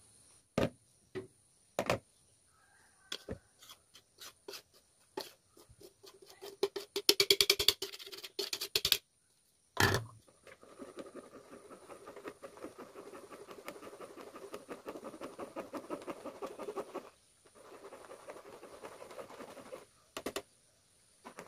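Wire whisk stirring dry flour and cocoa through a plastic mesh sieve: a soft, steady, fast scratching patter as the mix is sifted a second time. Before that, from the start to about ten seconds in, scattered clicks and a quick run of taps as the plastic bowl and sieve are handled.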